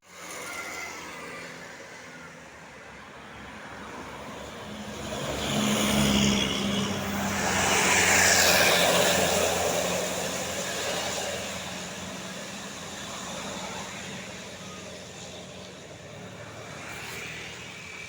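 A bus passing close by, engine and tyres, swelling to its loudest about six to nine seconds in and then fading slowly.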